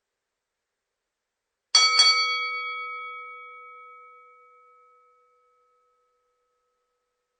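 Boxing ring bell struck twice in quick succession, a ding-ding about a quarter second apart, then ringing and fading away over about three seconds.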